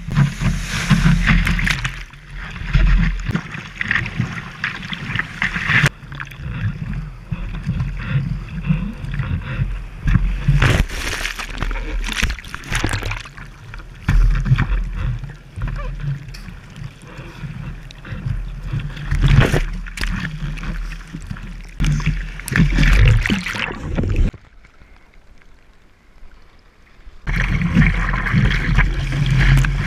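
Surf and splashing water close to the microphone as a surfer wades in and paddles a surfboard through breaking whitewater, with rushing, sloshing surges and heavy low rumble. It drops to a quiet muffle for about three seconds near the end, then the splashing returns.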